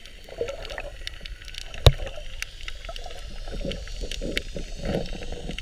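Underwater ambience picked up by a submerged camera: scattered sharp clicks and crackle over a steady low rumble of water, with one loud knock about two seconds in.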